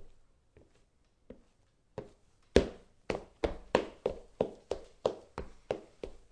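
Footsteps of shoes on a wooden floor: a few faint steps, then from about two and a half seconds in, much louder, quicker steps at about three a second.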